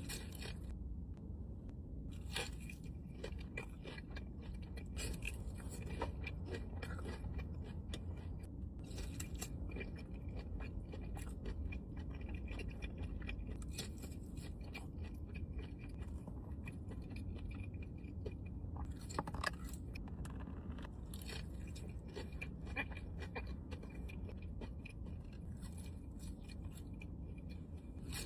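Crunchy fried lobster tails being bitten and chewed close to the microphone: irregular crisp crunches and chewing throughout, over a steady low hum.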